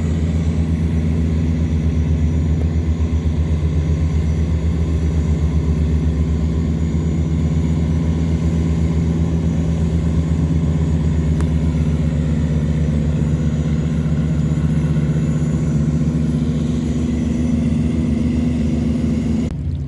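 Tugboat's heavy diesel engine running steadily under load while towing cargo barges against the current: a loud, deep, fast-pulsing throb. It drops away abruptly near the end.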